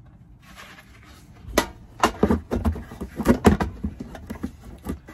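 Knocks and clatters of a plywood shelf being handled and set down onto a metal pull-out drawer over a portable gas stove. It starts about a second and a half in and runs as a quick series of separate knocks.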